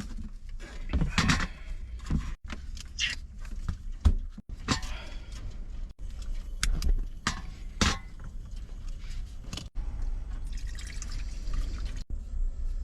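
Water pouring, dripping and splashing as food is handled in a small pot or bowl, with irregular clinks and knocks of utensils and cookware.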